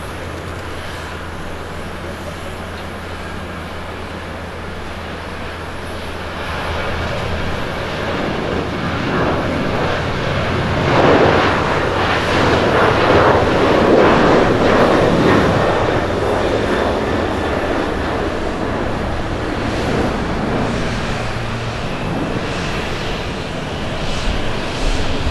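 Jet engines of a Boeing 737-800 at takeoff power during the takeoff roll: a steady low hum at first, then a broad jet noise that builds as the airliner accelerates past, loudest around the middle, and eases off as it climbs away.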